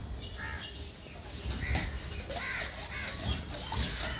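Crows cawing several times, over a low rumble.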